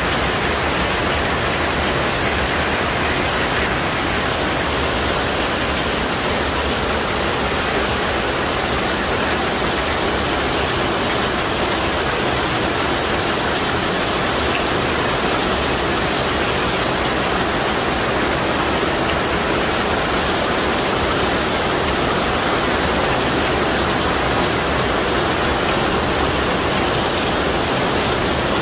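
Heavy rain falling steadily: a dense, even hiss of the downpour.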